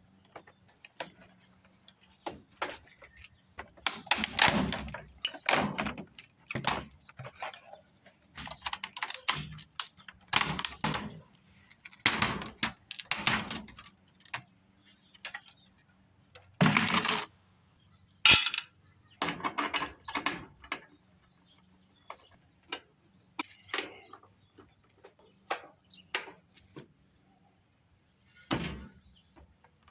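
Washing machine being taken apart by hand: irregular bursts of metal clattering, rattling and scraping as panels and parts are handled and pulled loose, with a sharp click about eighteen seconds in.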